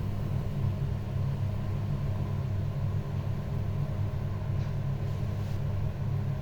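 Steady low hum with an even rumble and no change in level, with a few faint light sounds a little past the middle.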